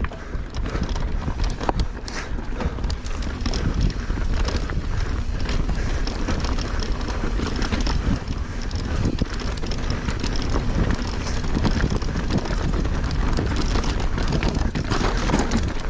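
Mountain bike riding fast down a rocky dirt trail: wind rushing over the camera microphone, with tyres rolling over dirt and rock and the bike rattling and knocking over the bumps.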